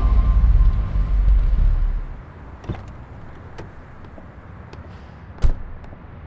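A car door slammed shut with a single thump about five and a half seconds in, after a few faint clicks. A low rumble fades out about two seconds in.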